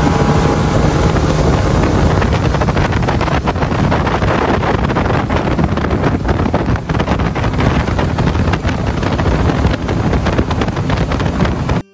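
Small fishing boat's outboard motor running at speed, with water rushing and spraying past the hull and heavy wind buffeting the microphone. The sound cuts off suddenly near the end.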